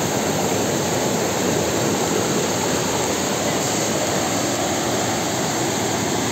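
Small rocky mountain stream rushing over boulders in whitewater rapids: loud, steady rushing water.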